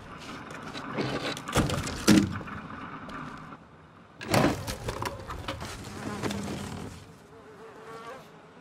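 Animated-film sound effects: a few loud rustles and clatters, then a small creature's buzzing, chittering cries that waver in pitch through the second half.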